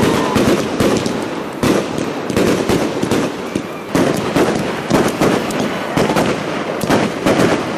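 Fireworks crackling outdoors: a dense run of sharp, irregular pops and bangs, some louder than others.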